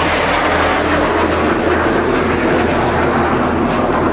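Steady jet noise of a formation of CT-114 Tutor jets flying past, each powered by a single turbojet engine.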